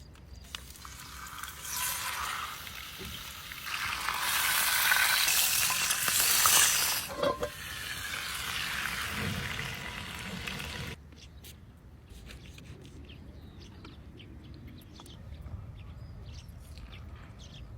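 Food sizzling as it fries in a hot pan, building up to a loud hiss for a few seconds, then dropping off sharply about eleven seconds in to fainter crackles and light clicks.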